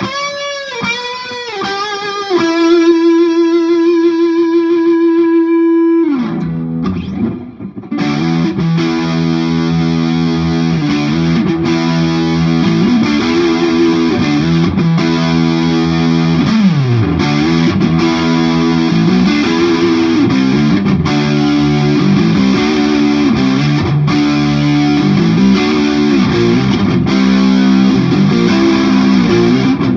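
Electric guitar, a Knaggs Kenai, through a Marshall JCM 2000 amp: a few bent notes rising and falling, then a long held note that slides down in pitch. From about eight seconds in it changes to loud, distorted riffing on chords.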